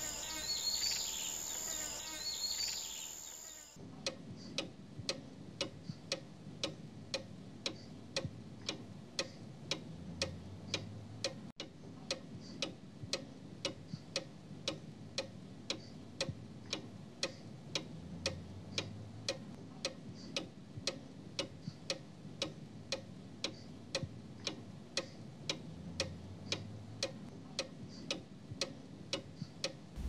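Crickets chirping, which stop about four seconds in and give way to a clock ticking evenly, about two ticks a second, the sound of an empty, quiet room.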